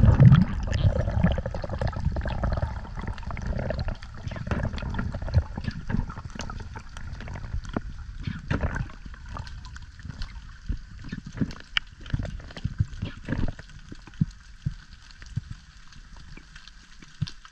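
Underwater water sound: a muffled low rumble of moving water with a constant crackle of small clicks, growing weaker over the second half.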